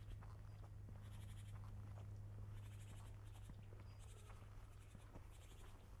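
Footsteps crunching on a forest trail, one scratchy step about every second and a half, over a low steady rumble.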